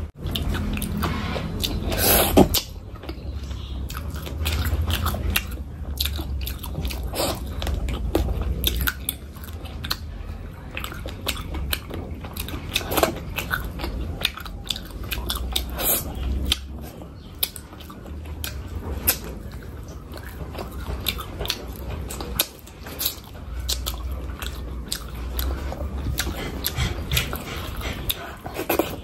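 A person chewing and biting food close to the microphone, with many short crunches and clicks; the loudest crunch comes about two seconds in.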